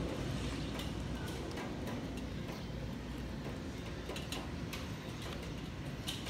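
Distant low rumble of an Airbus A320neo's Pratt & Whitney PW1100G geared turbofans as the jet climbs out after takeoff, with a scattering of sharp clicks on top.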